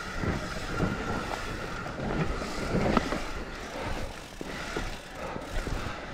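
Mountain bike descending a rough dirt trail: tyres rolling over soil and roots, with frequent short knocks and rattles from the bike and wind on the microphone.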